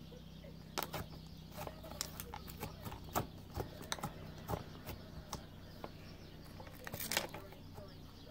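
Very sticky slime being pressed, poked and pulled apart by fingers, giving irregular faint sticky clicks and pops, with a louder crackle about seven seconds in.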